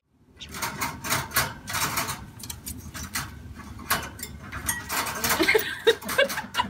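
A parrot's beak clicking and tapping at its seed dish and the wire cage: a quick, irregular run of sharp clicks.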